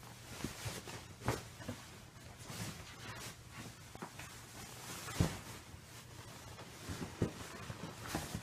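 Scattered soft rustles and knocks of bedding being handled, with one sharper knock about five seconds in.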